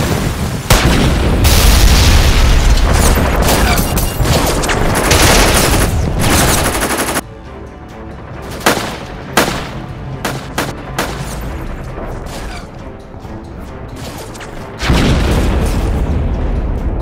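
Dubbed battle sound effects: a long explosion with a deep rumble starting about a second in, then scattered gunshots over a quieter stretch in the middle, and a second explosion near the end. Background music plays underneath.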